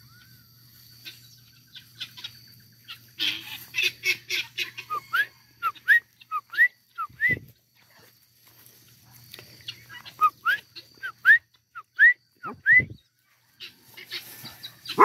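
A flock of helmeted guineafowl calling: bouts of harsh chattering, and runs of short rising calls at about two or three a second, in two spells.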